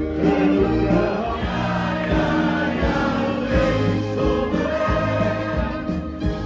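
Live music: a large choir of many voices singing with a band over a steady bass beat, heard from within the hall's audience.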